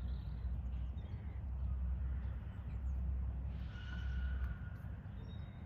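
A crow cawing once, about four seconds in, over a steady low rumble of wind on the microphone.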